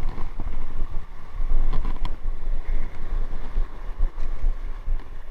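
Wind buffeting the microphone over the noise of a rough sea, with a couple of short clicks about two seconds in.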